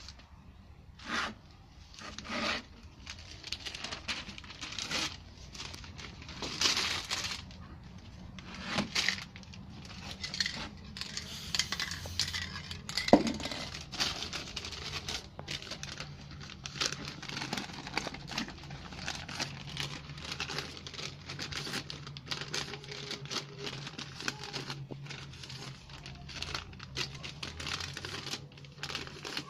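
Sheets of magazine paper being handled and crumpled: a run of irregular short rustles and crackles, with one sharp knock about halfway through.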